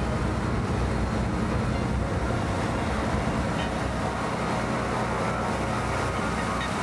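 An engine running steadily: a constant low drone with a rushing hiss over it.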